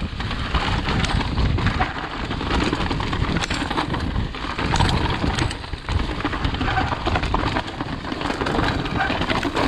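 Mountain bike riding fast down a rough enduro trail: tyres on dirt and stones, with a dense run of rattles and clicks from the bike and a heavy rumble of wind on the microphone.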